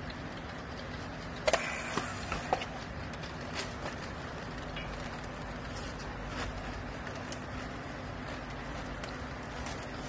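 Steady low machine hum, with a quick cluster of sharp clicks and knocks about one and a half to two and a half seconds in, then a few faint ticks, from yellow plastic strapping being worked around a compressed clothes bale with a handheld battery strapping tool.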